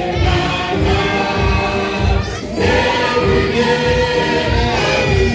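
Gospel choir singing with a band, a steady strong beat under held sung notes, with a short break about two and a half seconds in.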